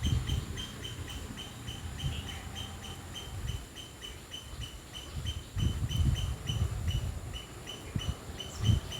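Insect chirping in a steady rapid rhythm, about four to five short high pulses a second, over irregular low rumbles that swell around the middle and again near the end.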